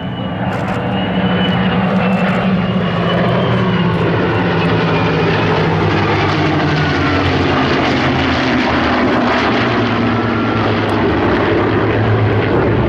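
An F-35A Lightning II jet and three P-51 Mustangs flying past together, their engines making a loud, steady drone. The propeller engines' note slowly falls in pitch as the formation passes, and the sound swells over the first second or so.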